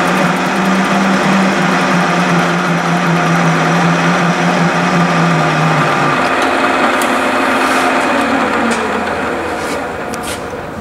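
Vertical milling machine running a face-mill cutter across the side of a cast cylinder block, a steady machine hum with cutting noise. The strongest low tone drops away about six seconds in and the sound eases near the end.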